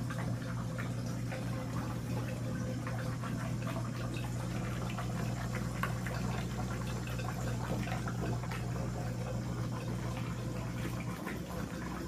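Water trickling and bubbling steadily through a continuous-flow hydroponic bucket system, with a steady low hum beneath.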